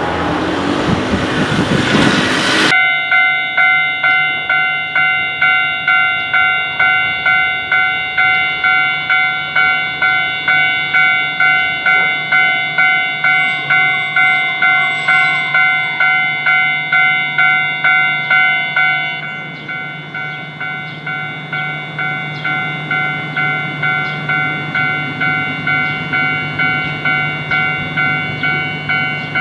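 A train passing for the first few seconds, then, after a sudden change, a Japanese level crossing's warning bell dinging steadily at about two strikes a second. The bell becomes a little softer about 19 seconds in.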